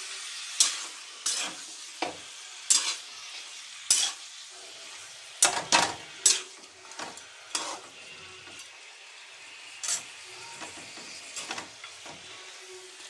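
Spatula scraping and knocking against a metal kadai as chicken pieces are stirred, over a steady sizzle of frying. The strokes come sharp and roughly once a second for the first eight seconds, then fewer and softer.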